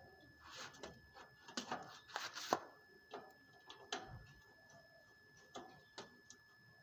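Scattered clicks and light knocks of hand work, most in a cluster about two to two and a half seconds in, over a faint steady high whine.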